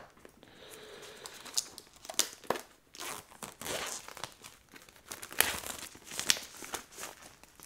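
Plastic shrink wrap crinkling and tearing as it is cut and pulled off a cardboard box, in irregular crackles with a few sharper snaps.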